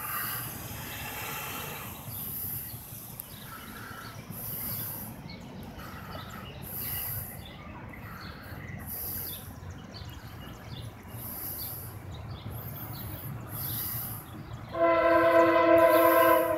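A CSX freight locomotive's air horn sounds one long blast near the end, over the low rumble of the approaching train.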